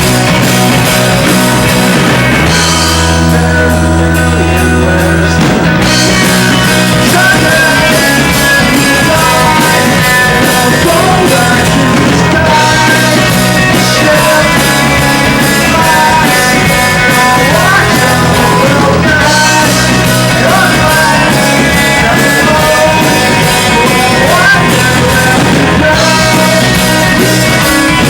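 Live rock band playing a song, with a singer over electric guitar and bass.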